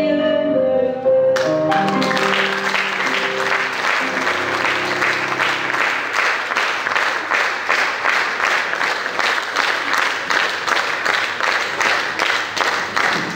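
A sung note over piano ends about a second in, and the audience breaks into applause that becomes rhythmic clapping in unison, about three claps a second.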